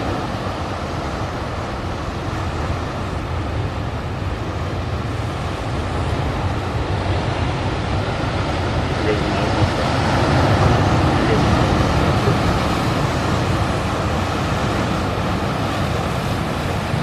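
Steady wash of sea surf and wind along a rocky shore, swelling a little about ten seconds in.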